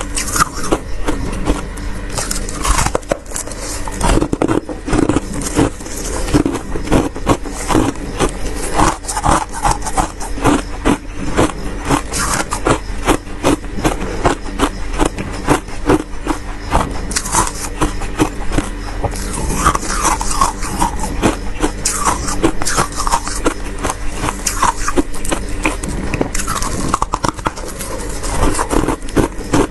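Freezer frost being scraped and crunched up close: a dense, continuous run of crackling clicks and scrapes.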